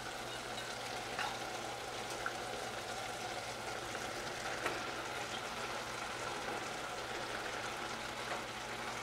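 Coconut and raw-mango curry sizzling and bubbling softly in a saucepan on an electric coil burner: a steady, even hiss with a few faint ticks as raw anchovies go into the pan. A low steady hum runs underneath.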